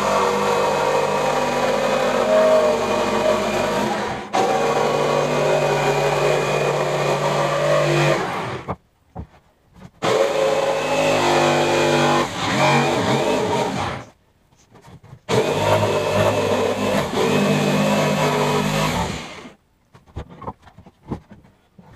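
Electric jigsaw cutting a pine board along a curve. The saw runs in stretches of several seconds and stops briefly about eight and fourteen seconds in before cutting again.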